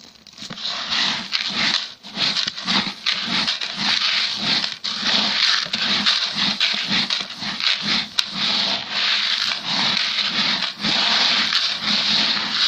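Dry grain rustling and hissing as a hand scoops and stirs pigeon feed, a barley, maize and pea mix, in a bucket, in repeated rhythmic strokes.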